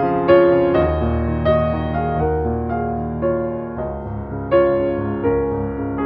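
Background music played on piano: a melody of single notes over held low notes.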